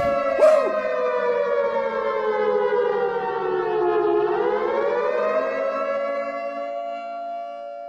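A wailing siren-like tone that sinks slowly in pitch, turns about halfway and rises again, then fades away, with a short sharp swish about half a second in.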